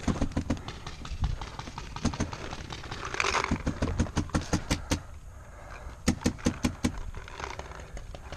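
Paintball marker firing strings of rapid shots, about six to eight a second: a few near the start, then longer strings about three and a half seconds in and again about six seconds in.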